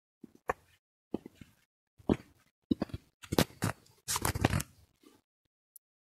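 Footsteps crunching over ground strewn with wood chips, then stepping onto a plank floor. There are about six or seven steps, roughly one a second, and the heaviest steps come about four seconds in.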